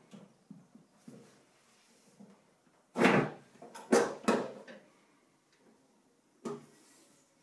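Metal side panel of an HP ProLiant ML330 G6 tower server being released by its recessed handle, slid back and lifted off the case: a series of clunks and scrapes. The loudest come about three and four seconds in, and another comes near the end.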